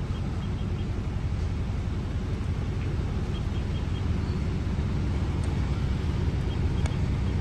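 Heavy truck's diesel engine idling: a steady low rumble that grows slightly louder toward the end.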